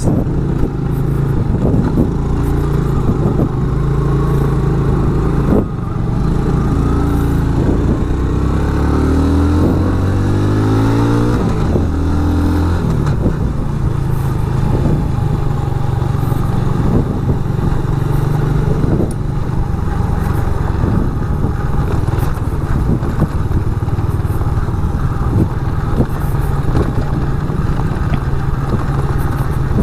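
Motorcycle engine running steadily under way. A little under a third of the way in its revs climb for several seconds, then drop back, with scattered knocks and rattles throughout.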